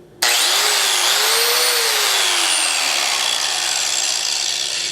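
Electric angle grinder switched on and running free with nothing against the disc. It starts suddenly with a high whine that climbs in pitch as it spins up, then slowly sinks in pitch and fades as it winds down near the end.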